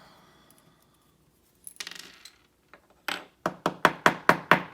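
Small metal lock parts clicking and tapping: a short rattle about two seconds in, then a quick run of about eight sharp metallic taps that get louder over the last second and a half.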